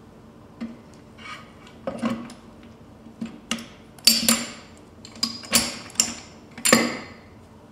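Metal clinks and knocks as a meshed pair of gearbox shafts, the pinion and input shafts of a sequential gear kit with the first/second selector fork, are lowered and settled into the gearbox case. A string of sharp metallic strikes with a short ring, the loudest ones in the second half.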